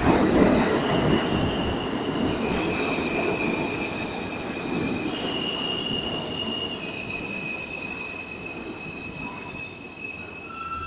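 R160 subway train pulling into the station and slowing: a rumble of wheels on rail, loudest at the start and fading as it slows. Over it run high steady whining tones that jump to a new pitch several times.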